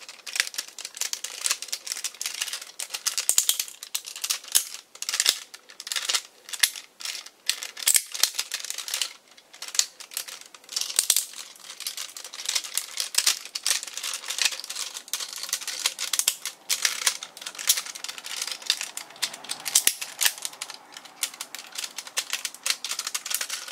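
Dense, irregular clicking and rattling of hard plastic transforming-toy parts being handled and snapped through their latch tabs.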